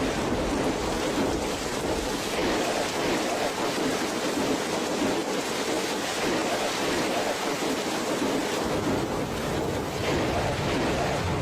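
Steady rushing of water, an even, unbroken wash of noise.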